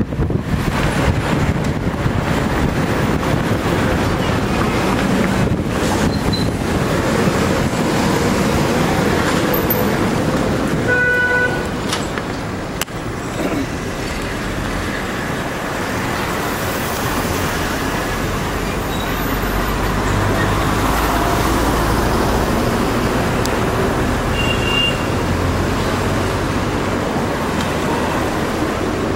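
City street traffic noise, with a vehicle horn sounding briefly about eleven seconds in.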